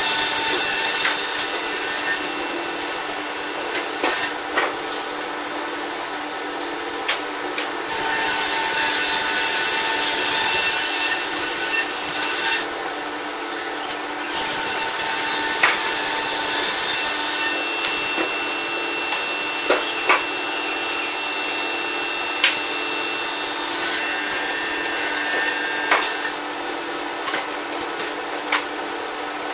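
Scragger-RS2 twin-spindle scragg sawmill sawing aspen logs: a continuous sawing noise with a few steady machine tones and scattered sharp knocks of wood. It is played at five times speed, so it sounds high and hurried.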